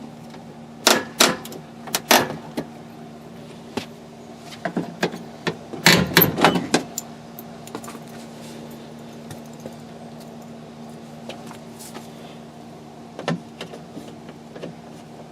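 Sharp plastic clicks and clattering as trim retaining clips are popped off a pickup's door panel with a clip tool: a few single snaps early, a busier rattle of clicks about six seconds in, and one more near the end, over a steady low hum.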